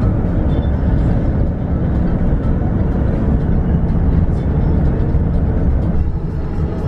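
Steady road and wind noise of a car driving at speed, heard from inside the car.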